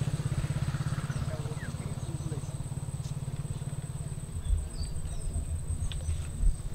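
A small engine running steadily with a fast, low putter that slowly fades, with two dull low thumps about four and a half and six and a half seconds in and a few faint short chirps.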